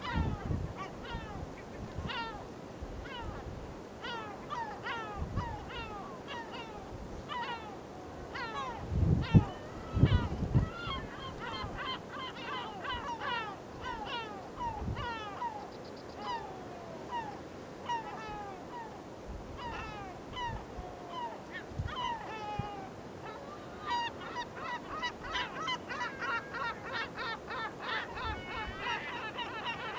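Yellow-legged gulls calling, many short falling calls overlapping one another, growing busier near the end. A couple of loud low thumps about nine and ten seconds in.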